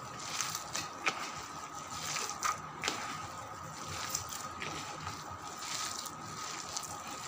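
Hand squeezing and kneading grated bottle gourd with gram flour in a plastic bowl: wet squishing with irregular small clicks and crackles.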